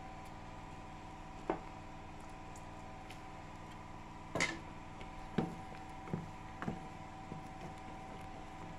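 Wooden spoon stirring soup in a metal pot, knocking against the pot a handful of times, the loudest knock about four and a half seconds in. A steady low hum runs underneath.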